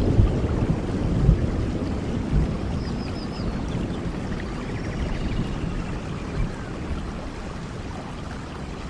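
Forest stream flowing, a steady rush of water that slowly gets quieter, with a short run of high chirps about three seconds in.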